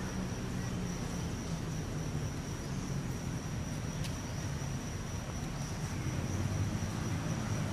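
A motor engine drones steadily and grows louder near the end as it approaches, under a steady high insect buzz.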